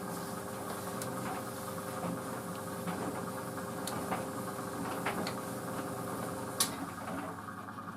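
White Knight CL43 tumble dryer running on high heat: a steady motor hum with the drum turning, and scattered light clicks and knocks from the tumbling load.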